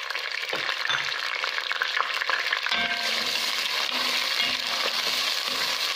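Chopped onion sizzling as it fries in hot oil in a pot. A wooden spoon starts stirring it about halfway through, and the sizzle thickens.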